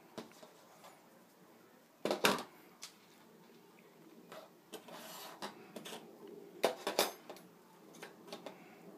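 Small metal hand tools, screwdrivers and pliers, clinking and clacking as they are handled and set down on a hard surface: an irregular scatter of sharp clicks, the loudest about two seconds in and again around seven seconds.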